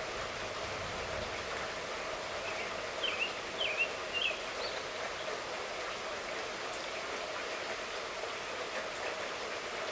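Steady light rainfall, an even hiss of rain without thunder. About three seconds in, a few short high chirps break through briefly.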